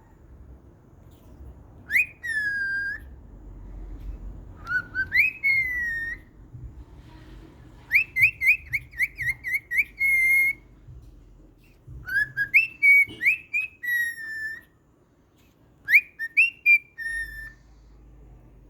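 Pet cockatiel whistling in five short phrases of clear notes with pauses between them; the phrase about eight seconds in is a quick run of repeated rising notes.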